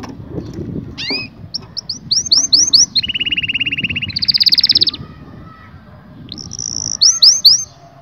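Male canary singing: quick sweeping whistled notes, then a fast rolling trill about three seconds in, a higher trill straight after it, and more sweeping notes near the end.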